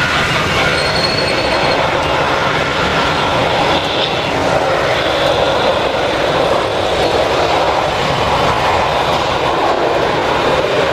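Airbus A320's CFM56 turbofan engines at takeoff power, a steady loud roar mixed with the hiss of heavy rain.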